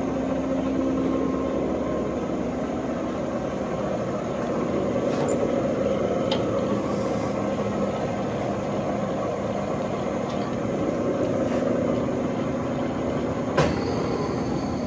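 Monarch 612 tool room lathe running under power, its spindle turning the four-jaw chuck: a steady hum from the headstock gearing and drive. A single sharp click comes about a second before the end.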